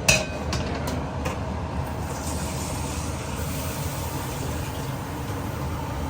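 Food frying in a pan on the stove: a sharp clank of a utensil against the pan right at the start and a few lighter clicks, then a steady sizzling hiss over a low rumble.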